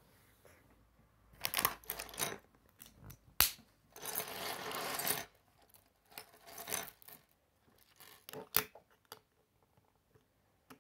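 Loose plastic Lego pieces clicking and clattering on a wooden table as they are handled. There are sharp single clicks about three and a half and eight and a half seconds in, and a longer rattle from about four to five seconds in.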